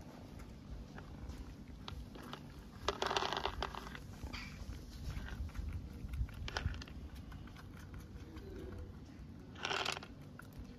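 Mother cat purring while her kittens nurse, a steady low purr, with a few faint ticks and two short noisy rustling bursts, about three seconds in and near the end.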